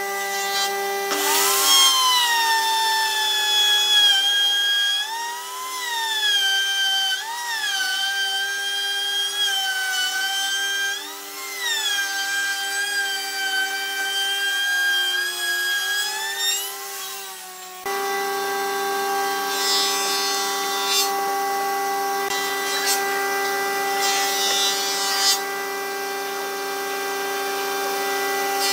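Handheld plunge router running and cutting a groove in a wooden board, its whine rising and falling in pitch several times as the bit's load changes. About two-thirds through the sound changes abruptly to a steadier machine hum.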